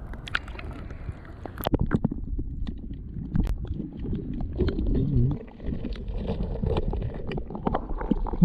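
Shallow seawater sloshing and gurgling as hands and legs move through it while searching for a crab, with many scattered sharp clicks.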